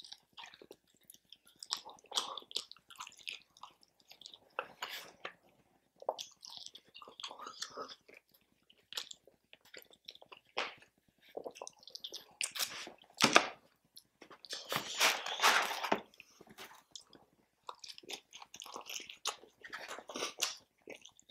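A person chewing and biting takeout food close to the microphone, with irregular crunches and mouth noises; the bites get louder for a couple of seconds a little past the middle.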